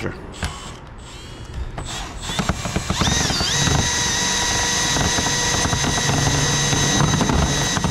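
A drill driving a screw through a strap into vinyl siding: handling clicks, then about three seconds in the motor spins up with a short rising whine and runs steadily until it stops near the end.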